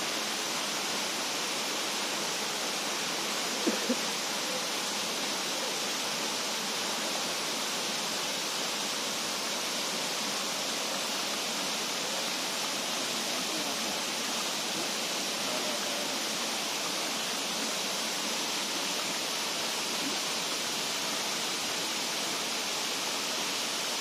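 Waterfall rushing: a steady, even hiss of falling water, with a brief louder sound about four seconds in.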